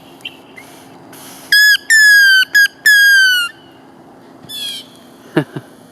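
A blade of grass stretched between the fingers and blown as a whistle: four shrill squeals, each sliding slightly down in pitch, between about one and a half and three and a half seconds in. About a second later a brief, fainter bird call answers: a mockingbird trying to copy the whistle.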